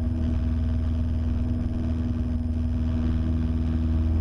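Cessna 172's piston engine and propeller droning steadily at full throttle in the initial climb after takeoff, heard from inside the cabin.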